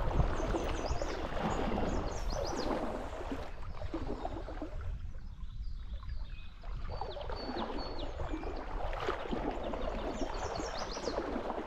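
Stream water running steadily, with a songbird singing short high chirping phrases several times.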